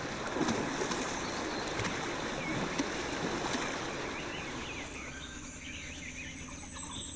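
Water splashing and churning as Asian elephants wade through a shallow river, with birds chirping. About five seconds in, the splashing eases and a thin, high, steady insect whine starts, slowly sinking in pitch, with more birdsong.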